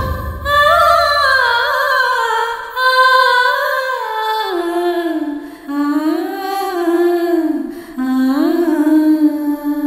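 Music: a woman singing a slow, gliding melody with little or no accompaniment, ending on a long held note.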